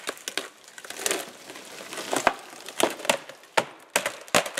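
A hinge-cut tree tipping over, its trunk cracking and splitting at the hinge as it falls. It gives an irregular run of sharp wood cracks and snaps throughout.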